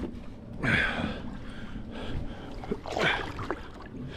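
A man breathing out hard twice, with a grunt-like exhale about a second in and another about three seconds in.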